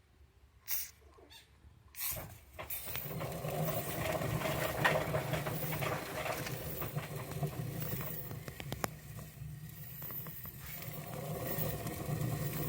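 Pet hamsters scrabbling and rustling in their cage: a dense run of small scratches and taps that starts about two seconds in.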